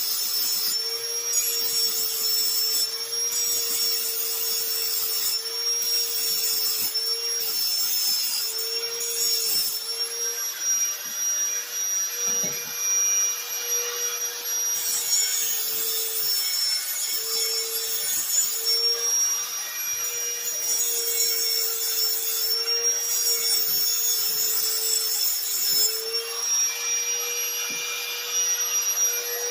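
Handheld power tool running continuously with a steady whine whose pitch dips slightly now and then as it is loaded, over a high rasping hiss, as when cutting or grinding metal.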